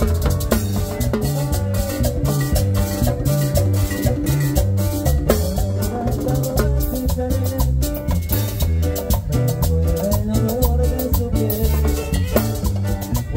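A live Latin dance band playing an upbeat number, with a drum kit and timbales keeping a steady, even beat under a sustained melody.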